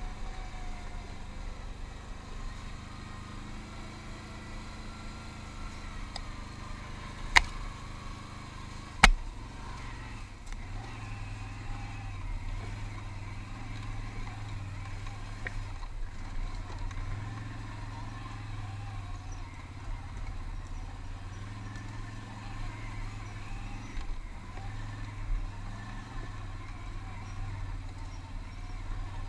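ATV engine running at trail speed, its hum growing stronger about ten seconds in. Two sharp knocks stand out, about seven and a half and nine seconds in.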